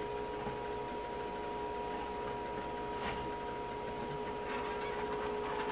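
Steady hum made of a few pure tones, with a faint knock about three seconds in as the lid of the electric glass kiln begins to lift.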